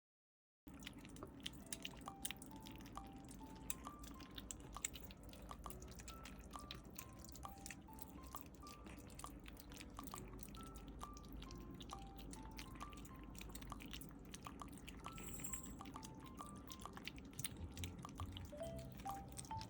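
Quiet background music: a simple melody of single plinking notes stepping up and down, with faint scattered clicks under it.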